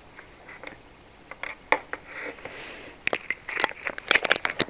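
Quick clicks and taps of a computer keyboard and mouse, a short cluster about a second and a half in and a denser run from about three seconds in.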